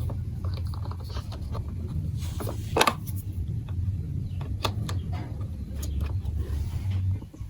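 Irregular light clicks and clacks of plastic marble run building blocks being handled, with one louder clack about three seconds in, over a steady low hum.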